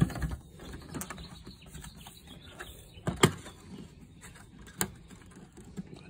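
Plastic RV refrigerator outside vent cover being set into its grooves: a few sharp plastic knocks and clicks, the loudest about three seconds in.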